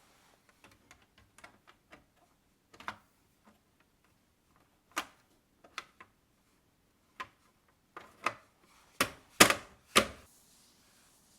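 Scattered light clicks and knocks of kitchen items being handled and set down, with a quick run of louder knocks near the end.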